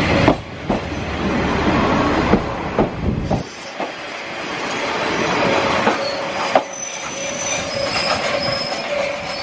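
KiHa 40 single-car diesel railcar running past close by and slowing to a stop: a heavy rumble with sharp wheel clacks over the rail joints, the rumble dropping away about three and a half seconds in, then thin high wheel and brake squeals as it draws to a halt.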